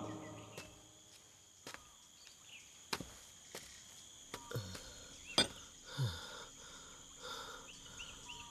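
Faint outdoor ambience with a steady high insect drone, broken by scattered sharp clicks and a few short falling swooshes. A louder ringing tone fades out in the first second.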